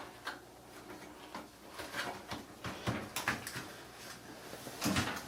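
Scattered light clicks and knocks of dryer parts being handled, a few sharper ones about two, three and five seconds in.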